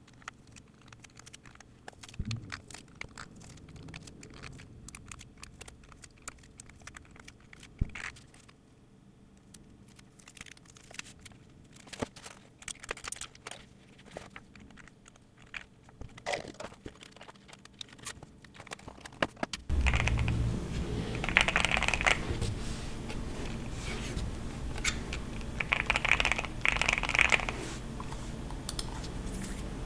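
Scattered light clicks and crinkles from a mechanical keyboard and its parts being handled. About two-thirds of the way through, a steady low hum comes in with a few short, louder hissing bursts.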